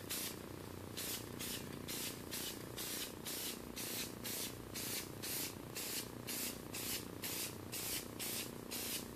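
Aerosol spray-paint can hissing in short, rapid bursts, about two a second, as paint is sprayed on in light strokes.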